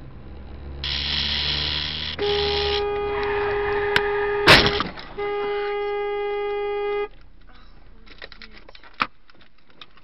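Car horn held in two long honks, the first about two and a half seconds and the second nearly two, with a sharp click in the short gap between them. About two seconds of loud rushing noise come before the first honk.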